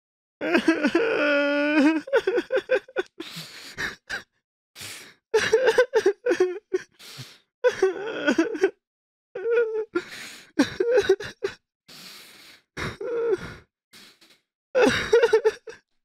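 A person crying, in sobbing, wailing bursts broken by gasps, with short silences between the bursts.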